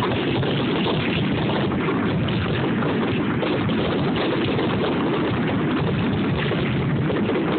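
Fireworks grand finale: many shells bursting in quick succession, so close together that they blend into a steady rumble.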